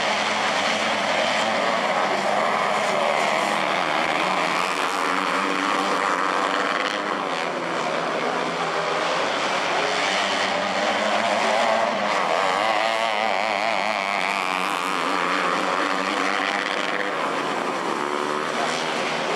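A pack of 250cc winged micro sprint cars racing on a dirt oval, their small engines buzzing and rising and falling in pitch as they go through the corners.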